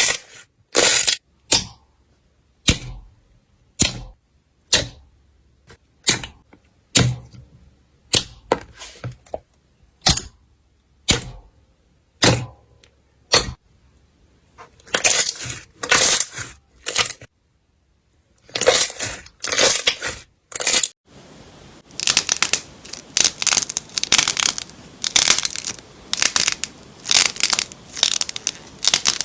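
Slime being pressed and squeezed: a run of sharp crackling pops about one a second, then from about three-quarters of the way in a denser, nearly continuous crunching.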